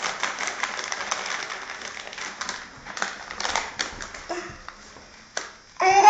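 Small cardboard boxes being handled and knocked about on a table by a toddler, a dense string of light clicks and rattles. A brief loud squeal from the child near the end.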